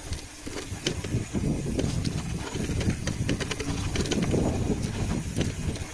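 Wind buffeting the microphone and tyre rumble from a moving bicycle, with scattered light clicks.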